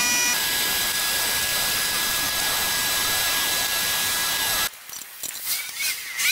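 Van-mounted carpet-cleaning machine running: a steady loud machine noise with a high whine, as from its vacuum. It stops abruptly about four and a half seconds in, leaving faint clicks and clatter of hose handling.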